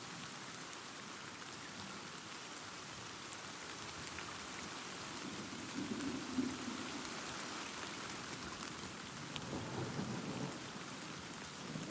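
Steady rain, with distant thunder rumbling low twice: once about halfway through and again near the end.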